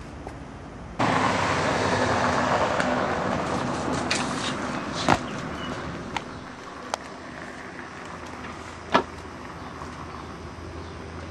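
Road traffic noise that starts abruptly about a second in and slowly fades, with a few sharp knocks, the loudest about five and nine seconds in.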